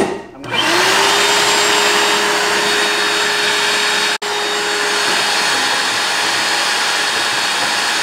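An electric motor-driven blower runs with a steady rush of air. It starts with a short rising whine about half a second in, then holds one steady hum. The sound cuts out briefly about four seconds in, and the hum fades out about a second later while the rushing goes on.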